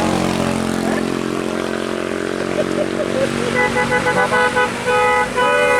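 A passing bus's engine, then about three and a half seconds in a telolet multi-tone musical air horn plays a tune: a run of short chopped notes followed by longer held chords.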